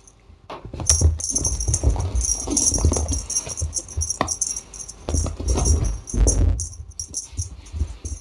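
Metallic jingling and rattling with many small clicks, mixed with low bumps and rustling close to the microphone.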